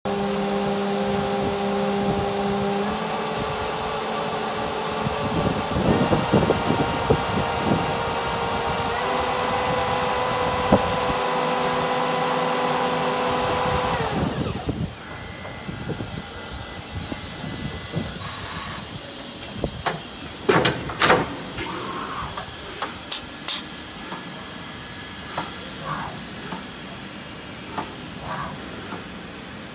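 Kira HPC-30V CNC tap-and-drill centre running, with several steady whining tones that jump in pitch twice and cut out about halfway through. After that a steady hiss remains, with scattered sharp clicks and knocks.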